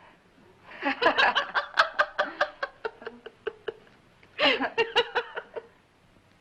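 Female laughter in two bouts: a run of quick pulses that fades away, then a second, shorter burst of laughing about four and a half seconds in.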